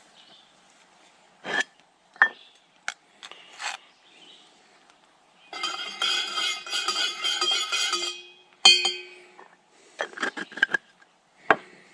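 Camping gear being handled and packed: a string of separate knocks and clinks, then a couple of seconds of metallic clattering and rattling, a sharp clank with a short ring, and a few more knocks near the end.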